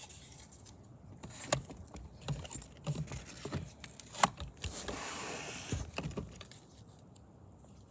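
Handling noise from a new scooter and its packaging as fasteners on it are worked at by hand: scattered sharp clicks and knocks, the loudest about four seconds in, then a short rustle of packaging.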